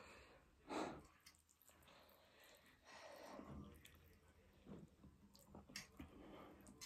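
Mostly near silence with soft eating and breathing sounds from people eating spicy ramen. There is one short, sharp noisy breath about a second in, then faint clicks and quiet breaths.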